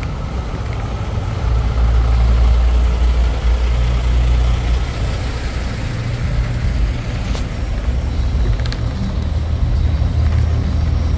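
Semi truck's diesel engine running with a steady low rumble, growing louder about a second and a half in.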